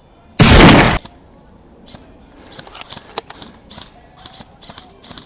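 A short, very loud burst of airsoft gunfire lasting about half a second, close to the microphone, followed by scattered light clicks and snaps.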